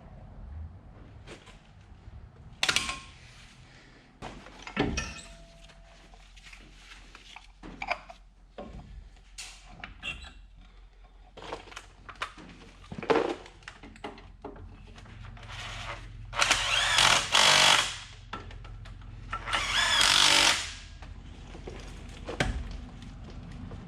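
A power tool running in two bursts of about a second each, with scattered metal clanks and knocks of tools and parts between them.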